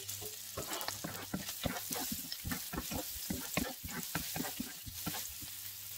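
Onions and garlic sizzling in oil in a nonstick frying pan, stirred with a wooden spatula that scrapes and taps the pan in many quick, irregular strokes.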